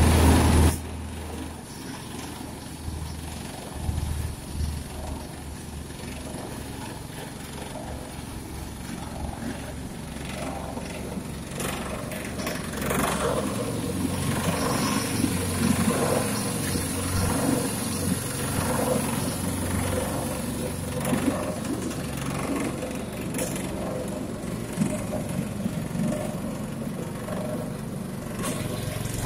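Small petrol engine driving a belt-driven sago palm grater, running steadily with a high whine from the spinning grating drum. From about twelve seconds in the sound grows louder and a grinding noise rises and falls about once a second as a section of sago trunk is pushed into the drum and its pith is shredded.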